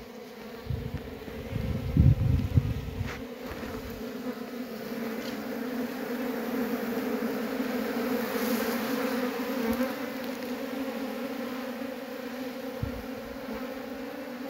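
A honeybee colony buzzing as a steady, dense hum at the mouth of a terracotta jar, bees flying close past. Low rumbling thuds sound about one to three seconds in, the loudest part.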